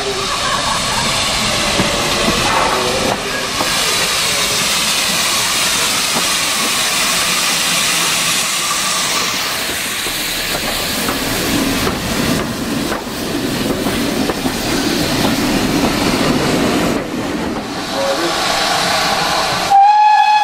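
Steam locomotive hissing loudly and steadily with escaping steam. Near the end a steam whistle sounds, one steady note.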